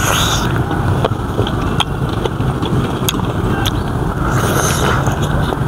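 Close-miked chewing of deboned chicken feet, with scattered sharp mouth clicks and crunches, over a steady low rumble.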